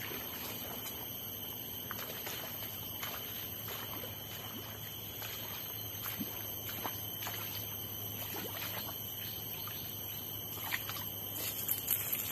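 Outdoor swamp-side ambience: a steady high-pitched whine under faint trickling water and scattered light clicks, the clicks growing busier and louder near the end.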